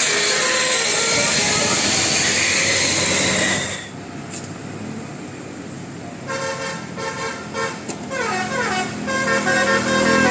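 Bus 'telolet' musical air horn playing loud multi-note tunes. The sound drops off suddenly a little under four seconds in, and a couple of seconds later the horn comes back with a stepped run of changing notes.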